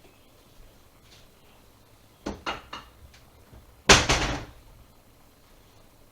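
Three quick light knocks, then a single louder bang about a second and a half later that rattles on briefly, like a cupboard door or lid being shut.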